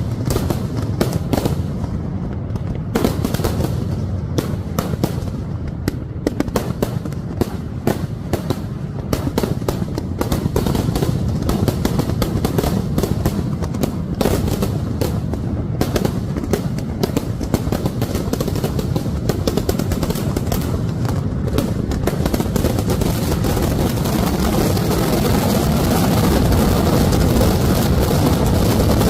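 Daytime firecracker barrage: a rapid, unbroken string of loud cracks and bangs going off in quick succession, merging into one continuous dense rumble in the last few seconds.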